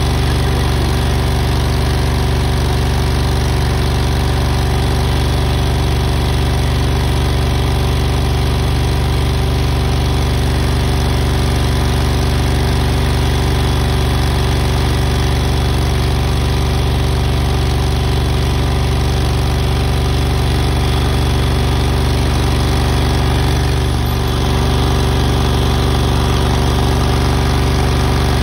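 An engine running steadily at one constant speed, dipping briefly once near the end.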